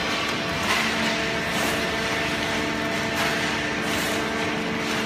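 Automatic horizontal waste-paper baler and its chain conveyor running: a steady machine hum with several held tones over a continuous rattling hiss.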